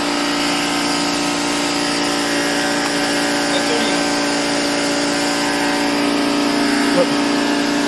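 A motor running steadily at a constant speed, a continuous even hum with no revving or change in pitch.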